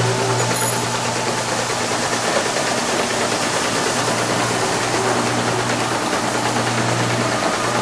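Packaging line machinery running: a tabletop chain conveyor and its drive give a steady low hum under an even mechanical noise.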